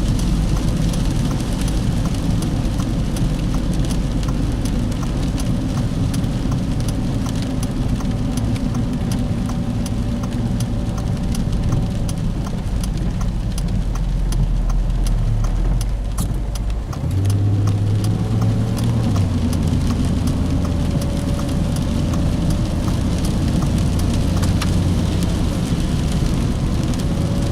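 Car driving on a flooded road, heard from inside the cabin: a steady engine hum and road noise with a constant patter of water drops. About 17 seconds in, the engine note changes to a steadier, slightly higher hum.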